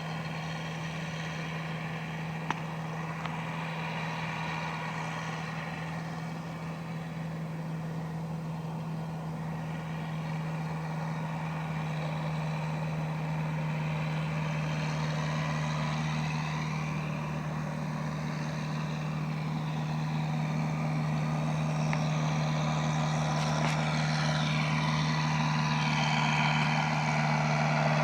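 Tractor engine running steadily under load while driving a baler, with the baler's mechanical clatter over the engine drone. It grows louder toward the end as the machine comes closer.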